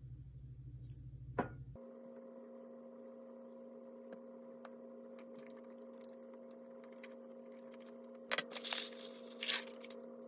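Granola poured into a glass bowl of sliced banana and yogurt: a couple of loud, crisp rattling rushes near the end. Before that, a steady appliance hum, which changes about two seconds in, with small spoon-and-bowl clicks.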